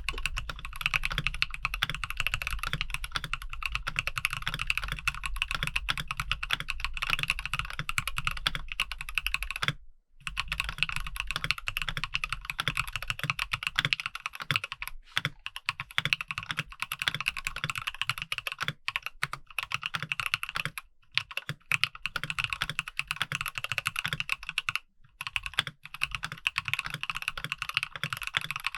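Fast, steady typing on a HolySwitch 65 mechanical keyboard with Red Smoothies switches and MT3-profile keycaps, a dense run of key clacks with a few brief pauses, one near the middle.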